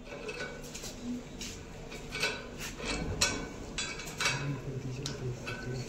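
Irregular sharp metal clicks and clinks of a cylinder wrench working the brass valve and regulator on an oxygen cylinder as the valve is turned shut.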